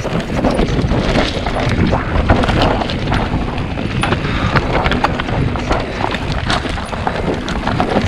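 Mountain bike descending a rough, loose dirt trail: tyres crunching over dirt and stones, with a constant rattle and many sharp knocks from the bike. Wind buffets the microphone throughout.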